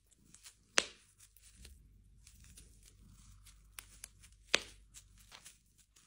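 Bubble wrap popping and crinkling under a cat's paws as it walks across the sheet: two sharp pops, about a second in and again past the middle, with smaller pops and crackling between them.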